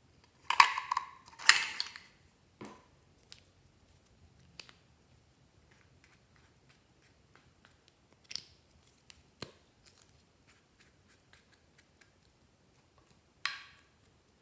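Slime being worked by hand, giving sticky squelches and pops: two loud ones near the start, scattered small clicks and crackles after that, and one more squelch near the end.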